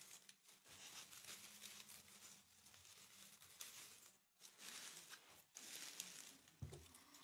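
Faint rustling and crinkling of ivy leaves and tinsel garland as a Christmas wreath is handled and a bauble is hooked onto it.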